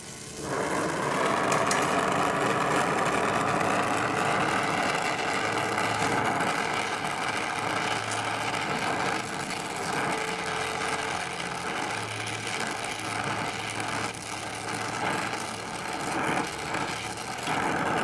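Oxyacetylene torch flame hissing steadily while it heats a brazed copper tubing joint to unbraze it from an air-conditioner capillary tube. The sound rises sharply about half a second in, then holds even, with a few light taps in the second half.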